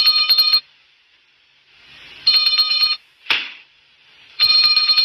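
Small brass handbell rung rapidly in three short bursts of bright, rattling ringing, as a cartoon sound effect. The first burst ends about half a second in, the second comes around the middle and the third starts near the end. A brief whoosh falls between the second and third bursts.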